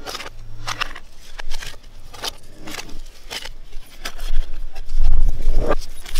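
Handling noise played in reverse: rustling, scraping and scattered clicks as the phone's microphone brushes against clothing, with a loud low rumble from about five seconds in.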